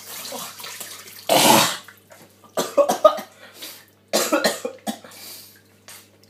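A man coughing hard after a spoonful of dry cinnamon powder: one loud cough about a second in, then several shorter coughs, over a tap running into a sink.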